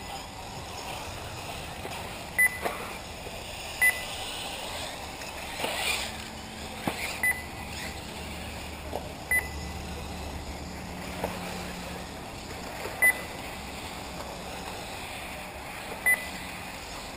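Short electronic beeps, about six at irregular intervals, from a race lap-timing system marking buggies crossing the timing line. Behind them is a steady outdoor hiss, with a brief rushing pass near six seconds in.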